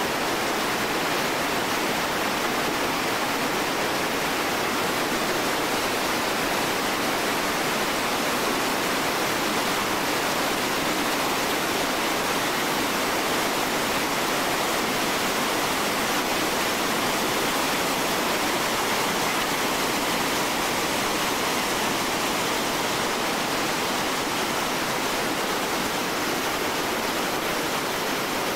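Steady rush of big whitewater rapids on the Marsyangdi River, an even wash of water noise with no change in level.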